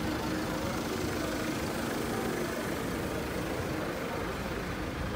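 A motor vehicle's engine running steadily, with a low hum over the noise of a city street.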